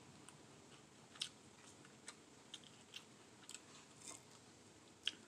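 Quiet eating by hand: faint chewing, with scattered crisp clicks and crunches as crispy fried fish is chewed and pulled apart with the fingers. The loudest clicks come about a second in and near the end.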